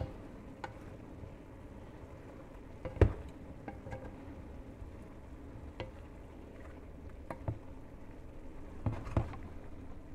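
Shrimp in a wine sauce simmering and reducing in a nonstick skillet, a low steady sizzle, while a wooden spatula stirs them and knocks lightly against the pan several times, the sharpest knock about three seconds in.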